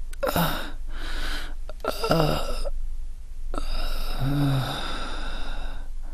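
A man breathing in heavy, ragged gasps and sighs in distress: four breaths, the last a long drawn-out one with a brief groan in it.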